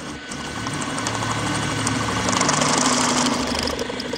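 Milling machine end mill cutting into a metal block under power feed, a steady grinding cutting noise over the spindle's hum, with chips flying. The cut grows louder toward the middle and eases near the end.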